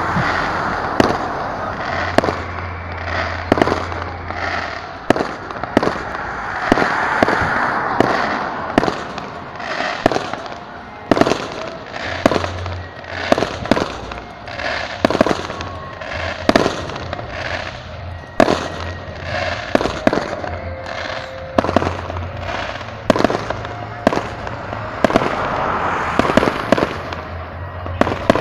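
Aerial fireworks display: rockets going up and bursting in a long, irregular run of sharp bangs, about one or two a second, over a steady background din.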